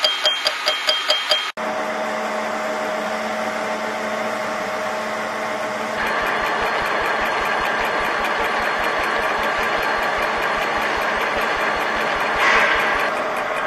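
A CNC horizontal boring mill's rotating cutter milling the inner faces of a metal lug: steady cutting noise over a running hum, with a fast, even chatter. The sound changes abruptly about a second and a half in and again about six seconds in, and gets briefly louder near the end.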